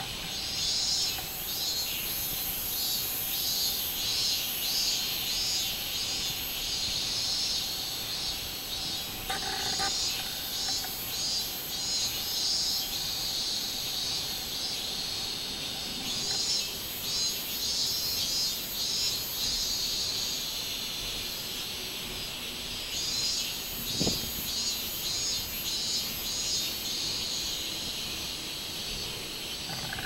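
Robust cicadas (minmin-zemi) singing in the trees: high, rapidly pulsing calls repeated over and over, swelling and easing, smoother for a stretch past the middle. A single low thump about four-fifths of the way through.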